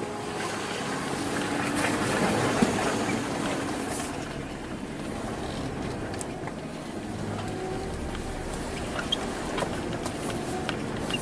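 Jeep Liberty (KJ) running on a dirt mountain track: a steady engine drone mixed with tyre and suspension noise. It swells a little about two seconds in, and a few sharp clicks and ticks, like stones or rattles, come in the second half.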